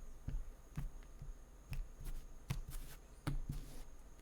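Tarot cards being shuffled and handled by hand: a run of about eight soft, irregularly spaced slaps and taps.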